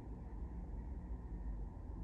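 Steady low rumble of distant city road traffic, an even hum with no single passing vehicle standing out.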